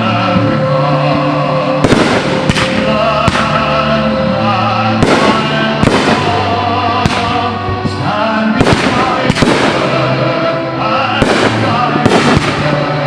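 Fireworks shells bursting in a string of about a dozen sharp bangs, every second or so, over loud music.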